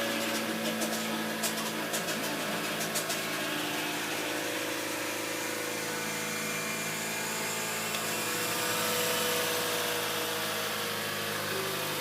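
A 60-series Toyota Harrier's engine running steadily just after start-up, with a few light clicks in the first three seconds.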